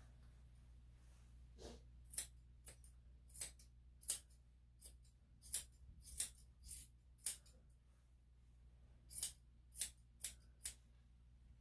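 Grooming scissors snipping through a miniature poodle's thick fur: about fifteen short, sharp metallic snips at an uneven pace, with a pause of about two seconds near the end.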